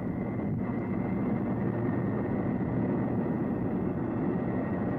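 Michelin 'Mille Pattes' ten-wheeled tyre-test vehicle driving at speed, its two rear-mounted Chevrolet 350 V8 engines and tyres making a steady running noise that grows slowly louder as it approaches.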